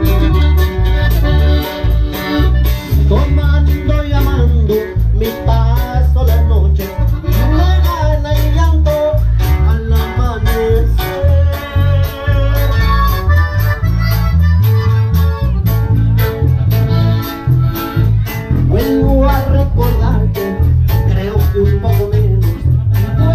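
Live band playing dance music through PA speakers: a melody line over a heavy, steady bass beat.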